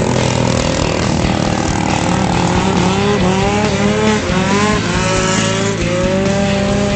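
Racing longtail boat engines running hard, their pitch rising again and again from about three seconds in as they rev up.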